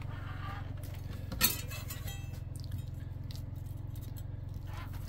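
Metal kitchen tongs clink once against a plate about a second and a half in, over a steady low hum.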